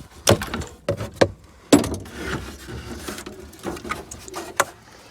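A few sharp knocks and clicks with some rustling, from interior parts of a Jeep Cherokee XJ being handled while the console area is worked on.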